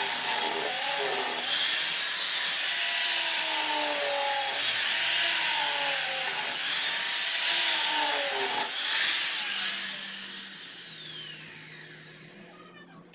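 Small handheld disc sander running with a high whine while sanding an ipil-wood frame, its pitch wavering as it is pressed and moved over the wood. About nine and a half seconds in it is switched off, and the whine falls steadily in pitch as the pad spins down.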